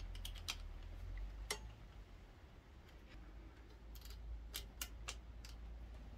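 Faint scattered metallic clicks and taps as a pit bike's clutch cable is fitted back into its bracket and lever on the engine's clutch cover: a few near the start, one about a second and a half in, and a quick run of them near the end, over a low steady hum.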